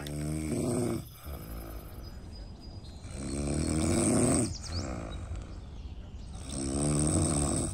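A person snoring in deep sleep: three long snores, each about a second or so, roughly three seconds apart.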